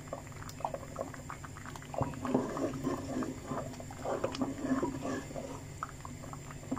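A ladle stirring and mashing thick mutton haleem in a pot: irregular wet, sticky smacks and pops from the paste-like mixture as it is worked.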